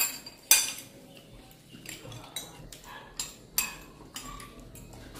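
Metal spoons and forks clinking against ceramic bowls as people eat noodles: a scattering of sharp clinks, the loudest about half a second in.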